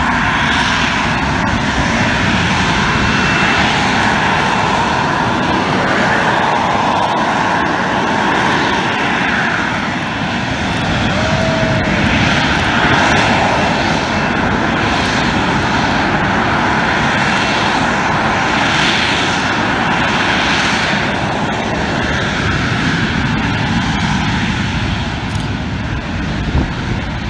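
Harrier jump jet hovering, its Pegasus turbofan running loud and steady, with a hissing rise and fall every second or two.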